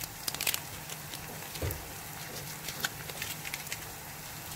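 Chopped onion and garlic frying in a pan, a steady sizzle with scattered crackles and pops, clustered about half a second in and again around three seconds in. A soft thump comes in the middle, as a second chicken stock cube goes into the pan.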